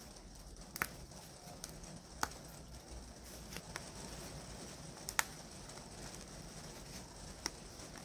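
Thin laser-cut plywood being handled and small parts pressed out of the sheet: a handful of sharp little wooden clicks and snaps, scattered and irregular.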